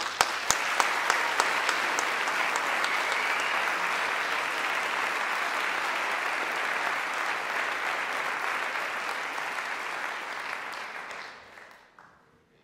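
Audience applauding: a few sharp single claps at the start, then steady applause that dies away near the end.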